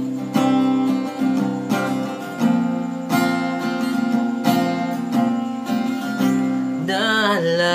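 Acoustic guitar strumming chords in an instrumental break of a slow love song. A voice slides in near the end.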